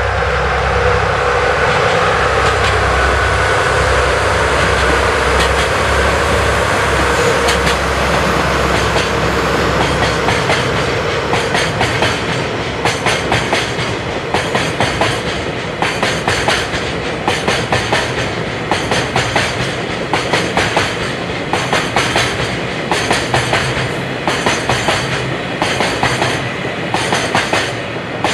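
Freight train hauled by two DD51 diesel-hydraulic locomotives passing: the heavy drone of the locomotives' diesel engines for the first ten seconds or so, then a steady rhythmic clickety-clack of oil tank wagon wheels over the rail joints.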